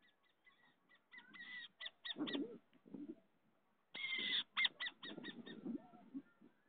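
Burrowing owl in its ground burrow giving harsh hissing screeches and rapid clicking chatter in several bursts. The loudest burst comes about four seconds in.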